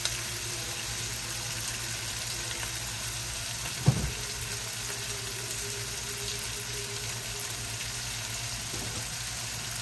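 Shrimp frying in oil in a hot wok, a steady sizzle, with one sharp knock about four seconds in.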